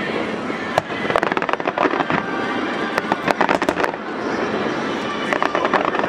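Aerial fireworks going off in quick strings of sharp cracks and pops, in three clusters about a second in, in the middle and near the end, over a steady background noise.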